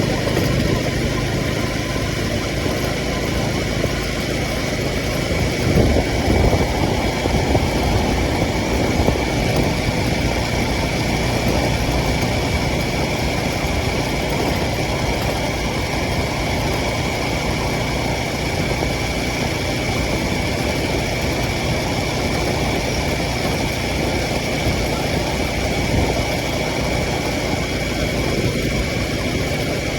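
Motorcycle engine running at low revs through city streets, with road and traffic noise and a steady thin whine; it swells briefly about six seconds in.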